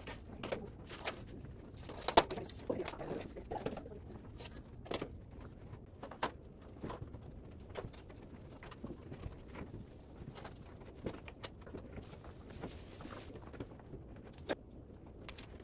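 Scattered clinks and knocks of metal backdrop-frame poles being handled and fitted together, with one sharp clank about two seconds in.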